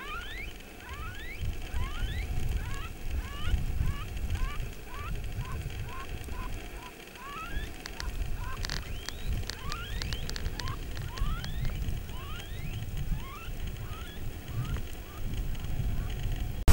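Predator call sounding a quick string of short rising squeals, two or three a second, a prey-distress sound used to draw in coyotes, over low wind rumble on the microphone. A few sharp clicks come about eight to nine seconds in.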